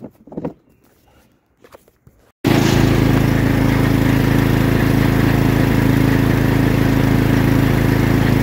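Riding lawn mower engine (Cub Cadet XT1) running steadily and loudly close to the microphone, cutting in suddenly a little over two seconds in after a few faint bumps.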